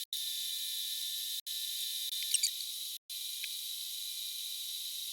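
A thin, steady high-pitched hiss with a few faint whining tones and some light ticks, its low end entirely missing, dropping out briefly three times.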